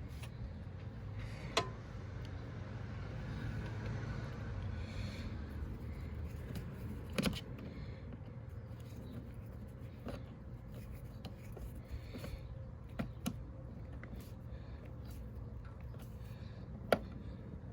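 Scattered light clicks, knocks and scrapes of hand tools and car parts being handled during reassembly, over a low steady hum.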